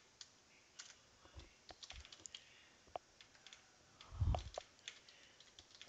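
Faint, irregular keystrokes on a computer keyboard, typing a word, with a single dull low thump about four seconds in.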